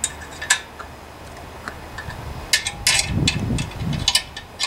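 Metal clicks and clinks from hand work on a small engine's flywheel and coil area, with a short low whir about three seconds in.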